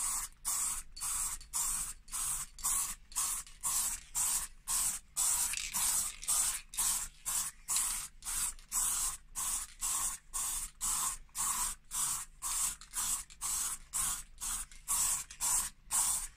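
Aerosol spray can of gloss clear sealer being sprayed in short, quick bursts, about two to three hisses a second, coating a painted leather steering wheel.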